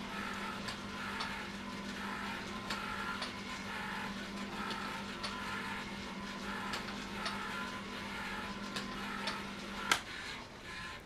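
Clay Paky Astro Ball lighting effect running: a steady low hum under a regular ticking, whirring cycle of its rotating mechanism, about twice a second. Near the end a sharp click sounds and the hum stops.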